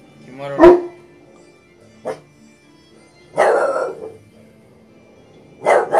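English bulldog puppy barking four times at uneven intervals: a loud, sharp first bark, a short one, a longer, rougher one, and a last one near the end.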